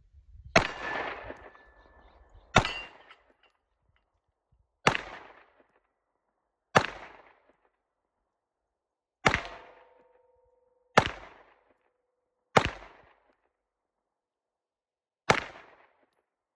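Smith & Wesson M&P 2.0 Compact 9mm pistol fired eight times in slow, single aimed shots, about two seconds apart, each crack followed by a short echo.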